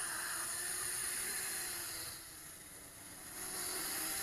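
Eachine H8C mini quadcopter's motors and propellers starting up suddenly and running with a high-pitched whine and hiss. The sound drops quieter about two seconds in and rises again near the end.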